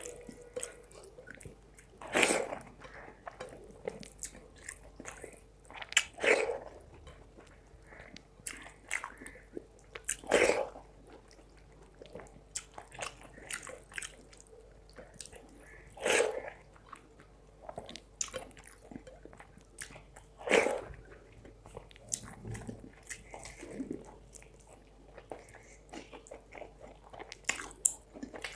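Close-miked chewing and wet mouth sounds of rice and fish curry being eaten, with many small clicks and a louder bite or smack every four to six seconds.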